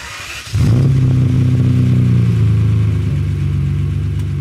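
A car engine starts about half a second in and then runs steadily, its revs rising a little about three seconds in.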